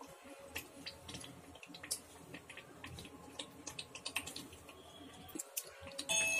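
Faint, irregular small clicks and pops from a nonstick pot of thick chicken curry cooking on the stove, with a spatula moving through the gravy. A short steady tone starts near the end.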